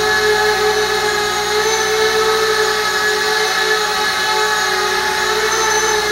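Eachine Falcon 180 racing quadcopter's brushless motors and propellers running in a hover, a steady whine that holds an even pitch.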